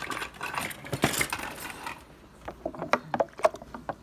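Utensil stirring thick oatmeal paste in a plastic Blendtec blender jar: a noisy scraping rustle for about the first two seconds, then a run of sharp clicks and knocks as it strikes the jar.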